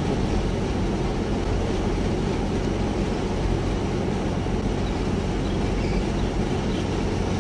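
Car engine and driving noise heard from inside the cabin: a steady low hum under an even hiss.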